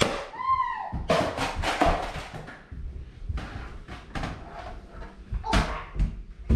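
A run of sharp knocks, clicks and thuds from a Nerf fight, with a short high cry that falls in pitch about half a second in.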